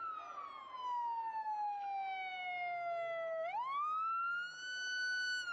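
Police car siren wailing. Its pitch slides slowly down for about three seconds, then sweeps quickly back up and holds high near the end.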